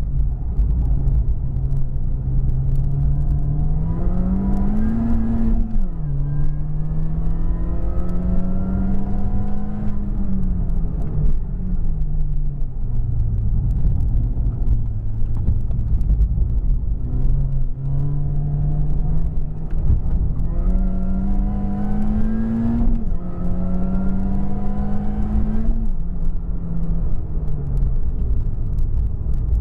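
Supercharged four-cylinder engine of a 250 bhp R53 Mini Cooper S, heard from inside the cabin as it is driven hard. The revs climb steeply and drop sharply at upshifts, hold, then fall away as the driver lifts, and the pattern comes twice.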